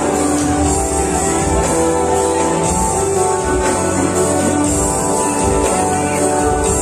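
Music playing, with held melodic notes over a bass line.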